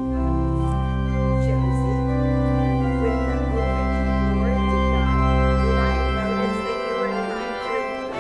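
Organ playing full, sustained chords over deep bass notes. The lowest bass notes drop out about six seconds in and come back near the end.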